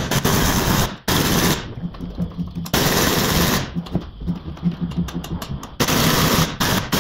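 Pneumatic impact wrench on a long extension hammering in several bursts, with short breaks, at a seized front-suspension bolt that will not come free.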